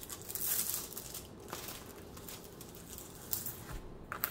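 Clear plastic cover film on a diamond painting canvas crinkling and rustling as a ruler is pressed and slid across it, with a few light ticks. The rustle is loudest about half a second in.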